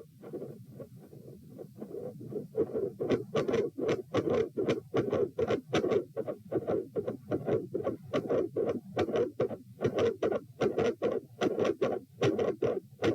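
Heart sounds heard through a stethoscope on the chest: a fast, even run of beats with split first and second sounds and a murmur between them. The beats are faint for the first two seconds or so, then turn loud.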